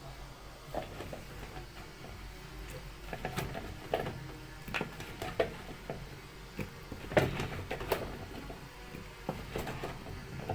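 Kitchen handling sounds: scattered light knocks and clicks at an irregular pace, with a sharper knock about seven seconds in.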